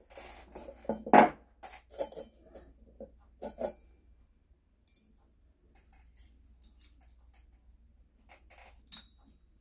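Metallic clinks and knocks as a brass stove fuel tank is set down onto a steel stand and metal tools are handled, the loudest knock about a second in, followed by sparse light handling clicks.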